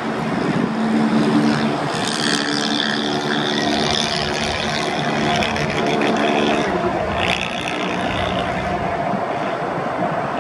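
Jet engines of a Boeing 777-300ER (GE90s) during the landing rollout: a steady, heavy rush with low hum. A high whine builds about two seconds in and eases off by about seven seconds, as reverse thrust is applied.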